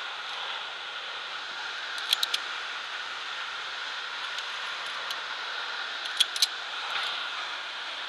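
Metal via ferrata clips clinking against the steel cable and iron rungs: a quick cluster of three sharp clicks about two seconds in and another about six seconds in. Under them runs the steady rushing of the waterfall.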